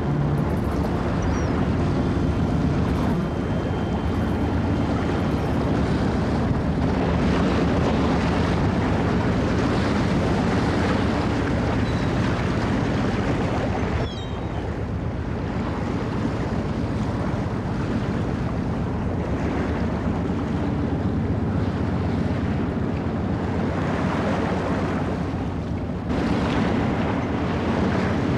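Rough sea rushing and breaking around a boat under way, with wind buffeting the microphone and the steady drone of the boat's engine underneath. The sound drops abruptly about halfway through and comes back up near the end.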